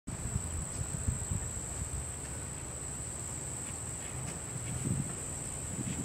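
Insects droning in one steady, high-pitched tone, with gusts of wind rumbling on the microphone.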